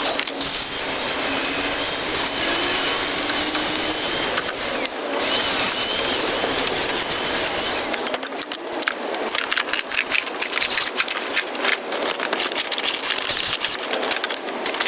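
A power tool working on wood-plastic composite decking boards: a loud steady cutting noise for about eight seconds, then a run of rapid, irregular clicks and rattles to the end.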